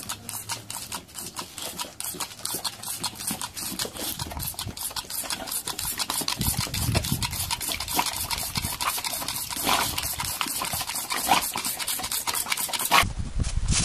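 Boxer dog snapping its jaws at a jet of water from a hose, a fast run of wet, clicking chomps about six a second, with water splashing; it gets louder from about six seconds in.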